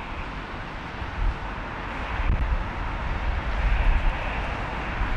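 A Cessna 510 Citation Mustang's twin turbofans on approach, heard as a steady rushing jet noise that grows slightly louder over the last few seconds. Wind gusts buffet the microphone underneath.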